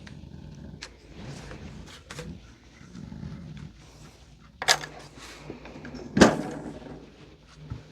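Craft materials being handled on a tabletop: irregular scraping and rustling, with two sharp knocks, the second and louder one about three quarters of the way through.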